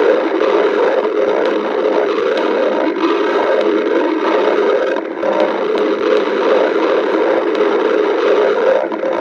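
A person's stomach growling: a continuous gurgling rumble from the belly that keeps going without a break.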